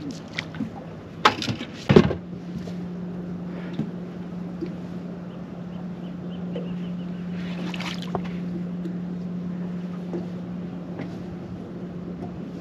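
Boat motor running with a steady low hum. Two sharp knocks on the boat come about a second and two seconds in.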